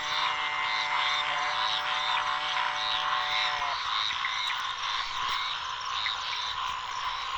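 Dense night chorus of many frogs calling at once, with short high notes repeating a couple of times a second. A steady lower drone under the chorus stops abruptly about halfway through.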